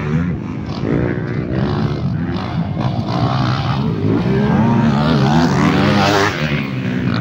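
Motocross dirt bike engine revving hard as the bike races by, its pitch rising and falling with the throttle. It grows louder to a peak about six seconds in as the bike passes close, then drops away.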